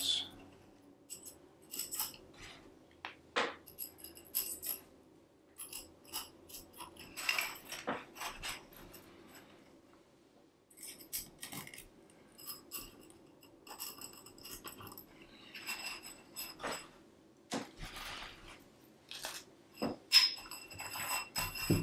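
Aluminium tensegrity tubes and the metal-tipped elastic cords being hooked onto them clinking and tapping, scattered light clicks with short metallic rings, and a louder clatter near the end as the structure is picked up and moved.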